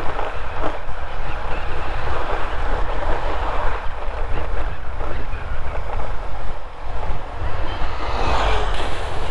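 Wind rushing and buffeting over the microphone of a moving motorcycle, a Honda Hornet 2.0, with engine and road noise beneath it.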